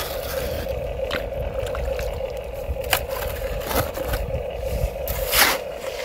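Plastic remote-control toy vehicle at work, with a steady mid-pitched motor whir and a few short plastic scrapes and knocks; the loudest scrape comes near the end.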